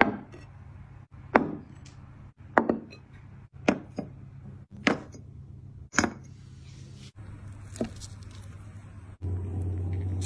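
About seven sharp knocks, roughly one a second, of ceramic dishes and bowls being set down on a wooden table, over a steady low hum that grows louder near the end.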